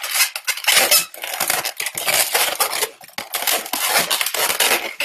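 Inflated latex twisting balloons squeaking and rubbing under the hands as they are squeezed and twisted, in a run of irregular scratchy squeaks with brief pauses.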